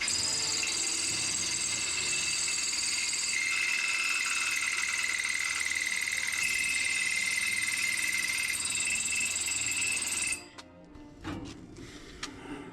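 Power drill boring into roll-cage metal, the bit cutting with a steady high squeal for about ten seconds, its pitch shifting a couple of times, then stopping. Progress is slow, which is taken as a sign the drill bit may be no good.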